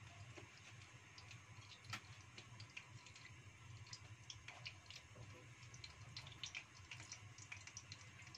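Faint, scattered ticks and small pops of cooking oil heating in a non-stick wok over a gas flame, coming more often in the second half, over a steady low hum.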